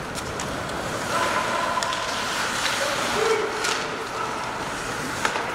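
Ice hockey arena during play: a steady wash of rink noise with skates scraping on the ice, a few sharp clacks of stick and puck, and faint calls from the players or stands.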